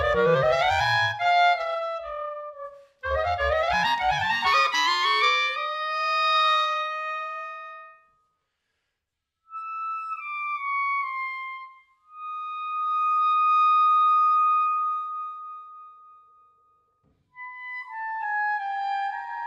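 Solo clarinet playing. It opens with fast, rippling runs of notes, then pauses briefly. A short falling phrase follows, then one long held note that swells and fades away, and a new phrase starts near the end.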